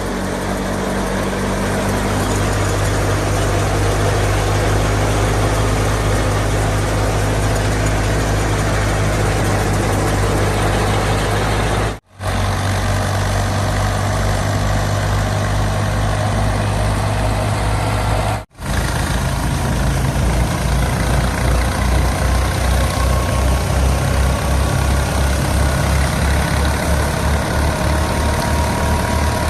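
Fiat 480 tractor's diesel engine running steadily under load with a low, throbbing beat. The sound breaks off abruptly twice.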